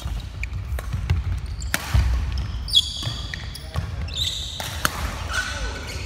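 Badminton rally: several sharp racket hits on the shuttlecock, sneakers squeaking on the wooden court floor, and thudding footsteps as players lunge and recover.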